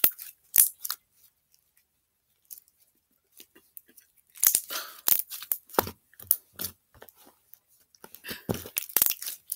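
Stretchy slime being pulled and squished in the hands: sticky tearing and crackling pops in short, scattered bursts, with a quiet pause of a few seconds after the first second.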